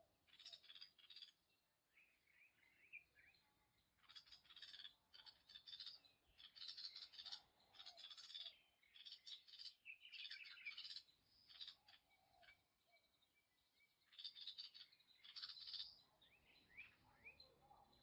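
Small birds chirping: short clusters of sharp, quick chirps come every second or so, with fainter twittering notes in the gaps.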